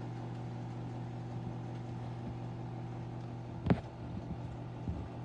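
Microwave oven running with a steady low electrical hum while cheese heats inside. A single sharp click sounds a little past the middle, with a few faint ticks after it.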